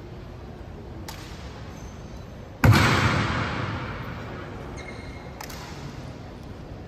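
A single sudden heavy thud about two and a half seconds in, the loudest thing here, with a long echo that dies away over about a second and a half, as in a large hard-walled hall. Fainter sharp knocks come about a second in and again near the end.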